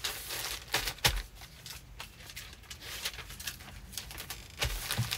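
Plastic mailers and paper rustling and crinkling as they are handled for packing, with a few sharp taps and knocks.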